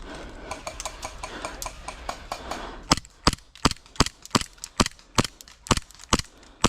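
Airsoft gun firing in quick single shots: about ten sharp cracks, roughly three a second, starting about three seconds in. Before that, lighter scattered clicks.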